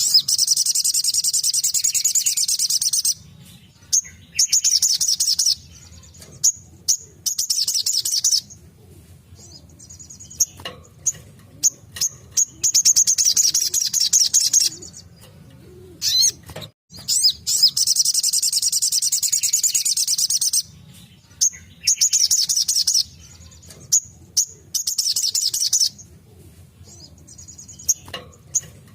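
Sogon (sogok ontong) sunbird singing its rapid, high-pitched 'tembakan' trills in bursts of one to three seconds, repeated with short pauses between them.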